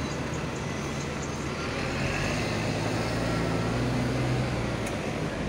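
City street traffic: buses and cars running on the road close by, with a low engine hum that swells from about two seconds in.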